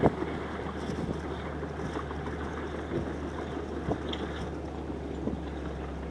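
ESh 6-45 walking dragline working: a steady low machinery drone with wind buffeting the microphone, and a few sharp clanks about four and five seconds in.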